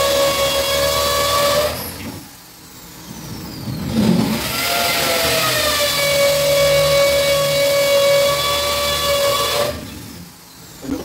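Power drill motor running in two long, steady high whines, the first ending about two seconds in and the second running for about five seconds after a short gap, with a brief knock just before the second run starts.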